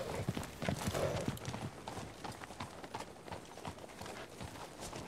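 Hoofbeats of many ridden horses moving at a walk over dry, hard ground, a dense clatter of overlapping clip-clops. Louder for the first second and a half, then softer and steadier.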